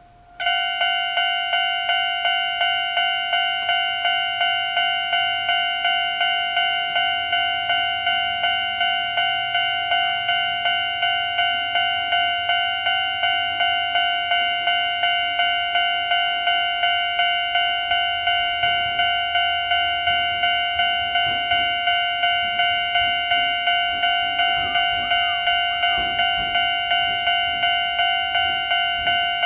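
Japanese railway level-crossing alarm, a Nagata Seisakusho electronic warning bell, switching on about half a second in and then ringing steadily. It is the older standard crossing tone at a fast tempo, about two and a half dings a second.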